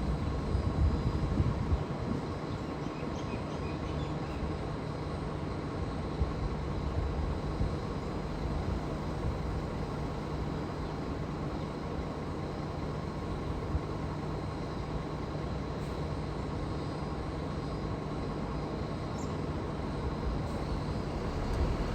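Comeng electric suburban train running out of the station: a low rumble that eases after the first couple of seconds, over a steady low hum.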